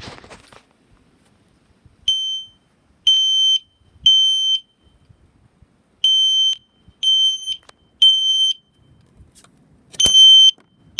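System Sensor P2RL fire-alarm horn strobe sounding its 3 kHz tone in the temporal-3 evacuation pattern on high volume. It gives half-second beeps a second apart in groups of three with a pause between groups: two full groups, then a third group starting near the end. The tone is piercing, smoke-detector-like and obnoxiously loud.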